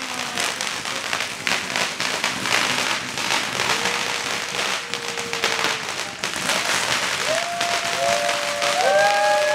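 A crowd applauding with dense, fast clapping. A long held call rises over it about halfway through, and near the end several voices join in with overlapping, sliding whoops.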